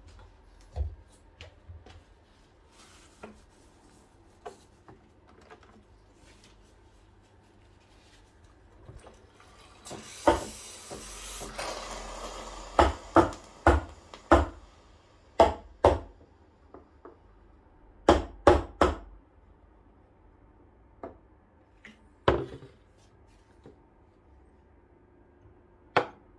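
Kitchenware handled at a sink: a short rush of running water, then a quick run of sharp knocks and clinks from a stainless milk pitcher and dishes, and a last clack as a glass is set on the counter near the end.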